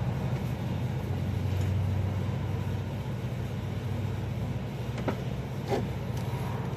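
Steady low mechanical hum, with two sharp clicks about five and six seconds in as the knock sensor's wiring connector is plugged in.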